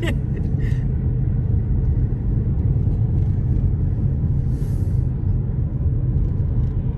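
Steady low rumble of a car being driven, heard from inside the cabin: engine and tyre noise on the road.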